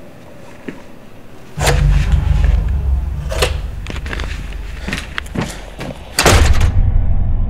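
A sudden heavy thud with a deep rumble about a second and a half in, then scattered knocks and bangs, and a second loud thud with more rumble near the end.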